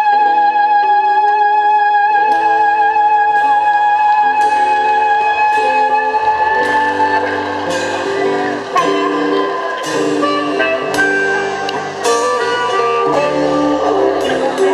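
Live band playing a guitar-led blues-rock passage. A long note is held for the first several seconds, then gives way to a run of shorter, changing guitar notes.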